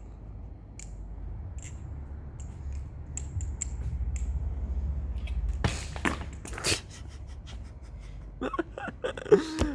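Small metallic clicks of a balisong knife being flipped over a low rumble, then two loud clattering knocks about six seconds in, and a person's voice near the end.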